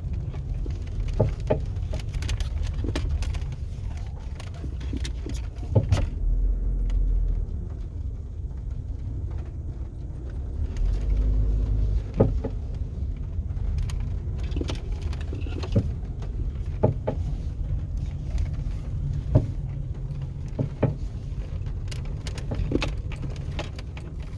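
2003 Hyundai Elantra on the move: a steady low rumble with sharp clicks or knocks at irregular intervals, a second or several apart.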